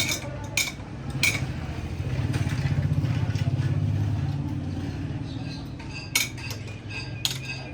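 Sharp metallic clinks of tools or steel parts knocking together, a few near the start and two near the end, over a steady low motor hum that swells in the middle and then fades.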